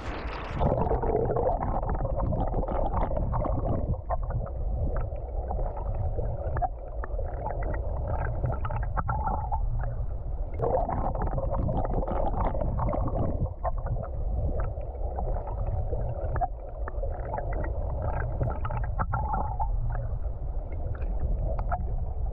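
Stream water heard from under the surface: a steady, muffled rumble and gurgle with faint scattered ticks and clicks.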